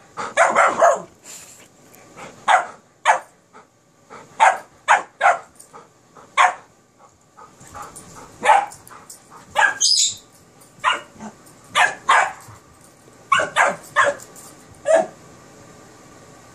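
Dogs barking in play, an Airedale Terrier and a Kerry Blue Terrier puppy: short sharp barks in irregular runs, with a higher yip about ten seconds in.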